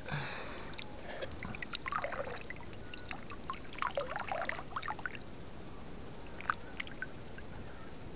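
Shallow stream water splashing and trickling as a hand moves through it among rocks, with a burst of splashing at the start and short splashes and drips coming in clusters around two and four seconds in.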